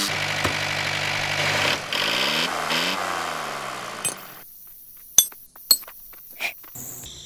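Small geared DC motor of a homemade toy tractor whining, its pitch sliding up and down for the first few seconds before it falls away. Then a few sharp metal clinks as the trolley's hitch is hooked on by hand.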